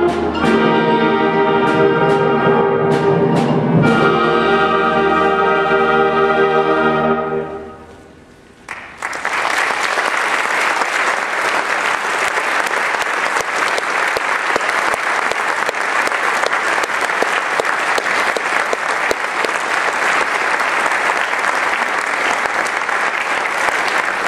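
Concert band of brass, woodwinds and percussion playing the closing held chords of a piece, with a few percussion strikes, the final chord dying away about eight seconds in. After a brief pause the audience breaks into steady applause.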